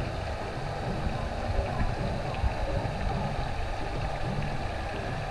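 Swimming-pool water lapping, a steady wash of noise with an uneven low rumble underneath.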